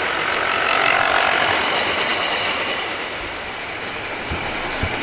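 00 gauge model diesel locomotive running past with wagons: its small electric motor whines while the wheels rattle along the sectional track. The whine eases off about three seconds in, with a couple of light knocks near the end.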